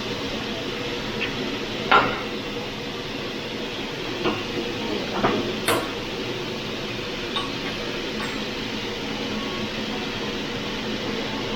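Metal utensils clinking and clanking a handful of times, the loudest about two seconds in, over a steady background hum.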